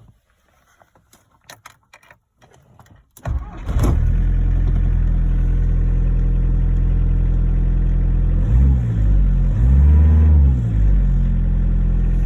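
A few faint clicks, then a car engine starts about three seconds in, catching almost at once and settling into a steady idle. It is revved briefly twice near the middle and runs smoothly, the knock now gone.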